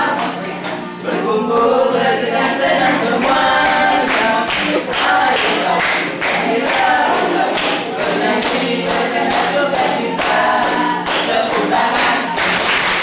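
A group of young men and women singing a group cheer song (yel-yel) in chorus, with a regular beat of sharp strikes running under the voices.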